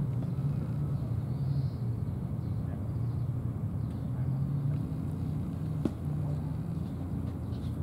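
Steady low outdoor background rumble with a faint hum, and a single sharp click about six seconds in.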